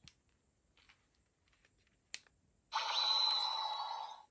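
Bandai Lieflasher transformation toy: light handling clicks, then a sharp click of its button about two seconds in. About half a second later, its built-in speaker plays an electronic sound effect for about a second and a half, a quick rising sweep settling into a high steady tone that cuts off suddenly.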